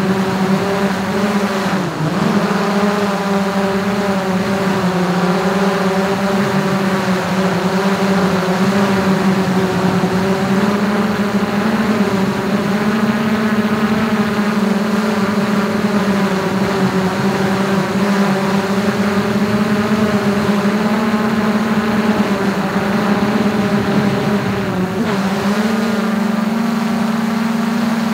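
DJI Mavic 2 quadcopter's propellers and motors humming steadily in flight, heard up close from a camera mounted on top of the drone. The pitch dips briefly about two seconds in and again near the end, then settles slightly higher.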